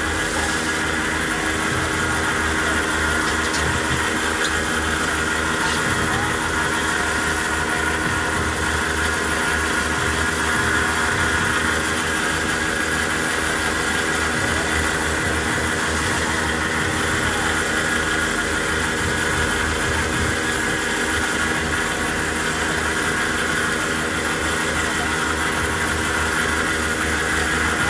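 Cotton candy machine running, its spinner head turning with a steady hum and whir while sugar floss is spun out into the bowl.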